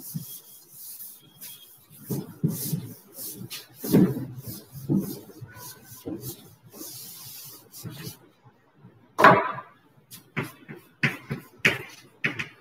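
Blackboard duster wiped across a chalkboard in a series of strokes, erasing chalk writing. About nine seconds in there is one sharper knock, followed by a quick string of short taps.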